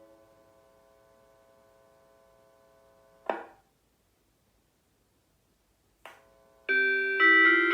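Electronic train chime from a 183-series car, played through an express-train loudspeaker in a bathroom: the previous chime fades to a faint held tone that cuts off with a click about three seconds in. After a short silence and another click, the next chime starts near the end, several notes sounding together and stepping in pitch.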